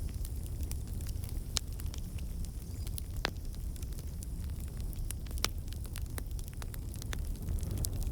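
Campfire burning: a steady low rumble of the flames with scattered sharp crackles and pops of burning wood, a few louder pops standing out.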